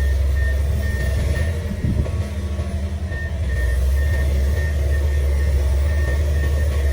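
Komatsu PC500LC excavator's diesel engine running steadily under load with a deep low drone, and a faint high tone cutting in and out.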